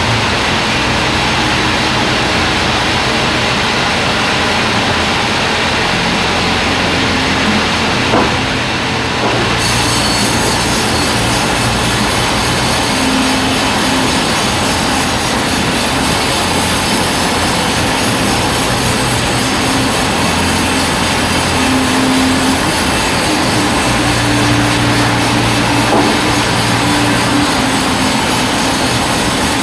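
Large band sawmill running and cutting timber, a loud steady mechanical noise with shifting low hums. A harsher, hissier edge comes in about ten seconds in and holds.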